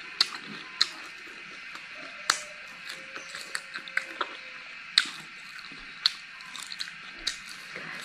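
Close-up chewing of crispy deep-fried cicadas, with sharp crunches about every second.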